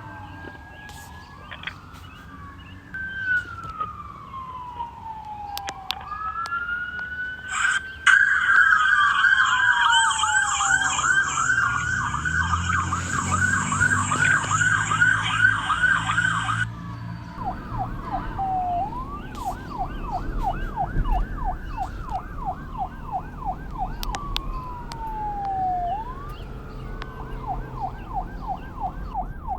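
Several police sirens overlapping, switching between a slow rising-and-falling wail and a fast yelp. About eight seconds in, a much louder siren starts a rapid yelp and cuts off suddenly about halfway through. Fainter sirens keep wailing and yelping behind it over a low rumble.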